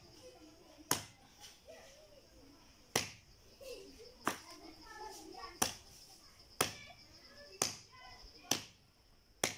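Machete chopping a mudfish on a concrete floor: about eight sharp chops, roughly one a second, with faint voices behind.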